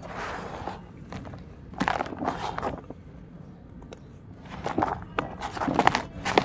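Hands digging into and crumbling dry, gravelly dirt in a plastic tub: gritty crunching and rustling in several bursts, the loudest near the end.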